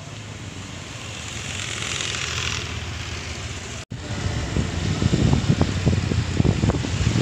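Street noise with a passing vehicle that swells and fades in the first few seconds. After a brief dropout, wind buffets the microphone in loud, uneven low rumbles.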